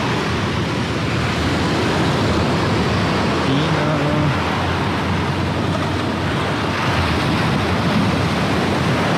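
Sea waves breaking on the shore, a steady, loud rush of surf.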